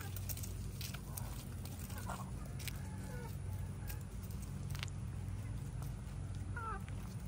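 Backyard hens clucking softly at intervals: short, separate calls about once a second, with a few sharp light clicks among them.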